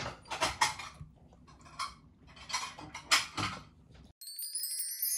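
Light, irregular clinks and rattles of small hard objects being handled. About four seconds in, this cuts off abruptly and a high, sparkling chime jingle begins.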